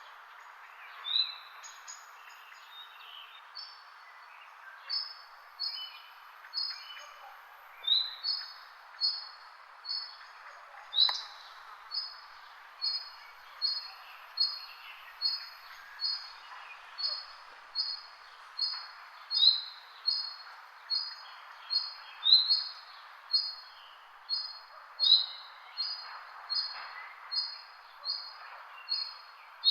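Birds chirping. One bird repeats a short high note at a very even pace, about three every two seconds. A few other chirps and short rising calls fall in between, over a steady background hiss.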